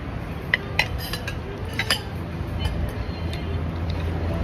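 Metal spoon and fork clinking against the dishes, a few sharp clinks in the first two seconds, over a steady low hum.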